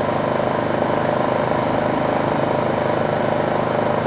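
Craftsman 3000i inverter generator's small gasoline engine running steadily with economy mode off, holding its speed under the load of a 1500-watt space heater.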